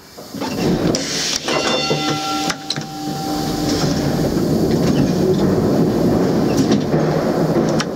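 A W-class tram rolling out along the depot track, heard from inside the cab. It runs with a steady rumble and several sharp clacks from rail joints and points, with a brief steady whine about two seconds in.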